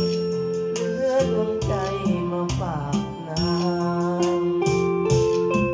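Live band music with a steady beat of sharp, rattling percussion strikes under sustained melodic lines.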